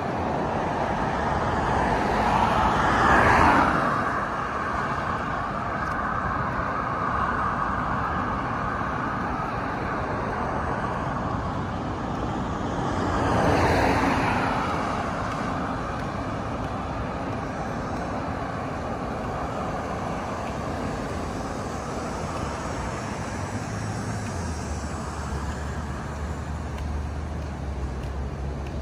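Road traffic passing on a multi-lane street: a steady wash of tyre and engine noise. Two vehicles pass close by, one about three seconds in and another about fourteen seconds in. A low steady rumble joins in near the end.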